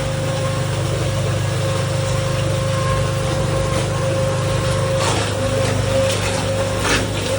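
A small engine running steadily at an even speed. Several sharp knocks or splashes come in over the last two seconds or so.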